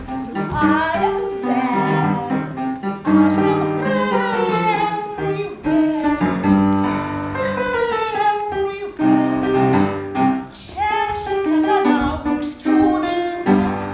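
Upright piano played with a woman singing over it in an operatic style. The pianist is the one singing, as the Cheshire Cat's voice.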